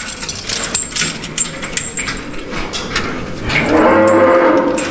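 A calf moos once, a call lasting about a second that starts about three and a half seconds in and is the loudest sound. Scattered knocks and clatter come before it.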